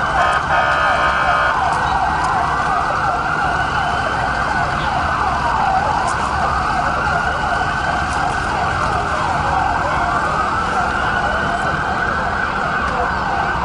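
Several emergency-vehicle sirens wailing at once, their rising and falling sweeps overlapping continuously. A horn sounds briefly at the start.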